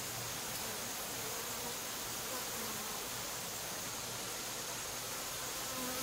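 Honey bees buzzing on the wing: a low hum that swells briefly a little over two seconds in and again near the end, over a steady hiss.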